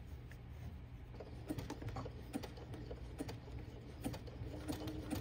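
Domestic sewing machine stitching slowly: scattered light clicks over a faint steady hum, with a low even whir starting near the end.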